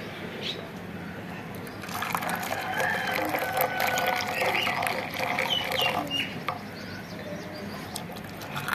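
A rooster crowing, starting about two seconds in, with short high chirps near the middle.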